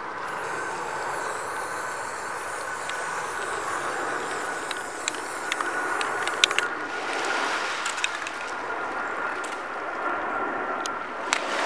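An aerosol spray-paint can sprays in one long continuous hiss that stops a little past halfway. After it come a few light clicks and knocks as rocks are lifted, over a steady background rush.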